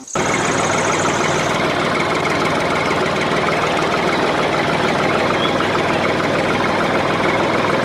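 A steady engine-like running sound that starts abruptly and holds an even level.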